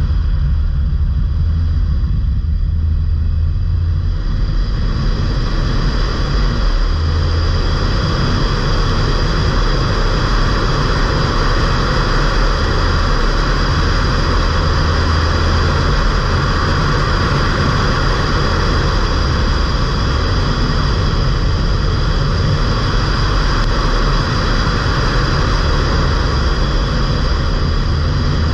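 Stage 1 remapped Ford Fiesta mk8 1.5 TDCi diesel under way: a low engine hum that swells and eases with the throttle, under a steady rush of road and wind noise that grows after about five seconds.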